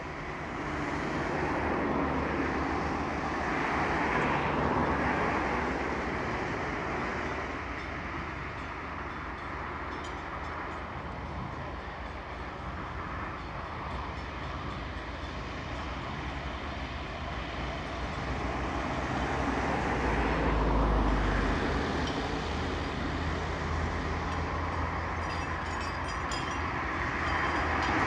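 Rail vehicle running close by: a steady low rumble under a wash of mechanical noise, swelling louder about two seconds in and again around twenty seconds in.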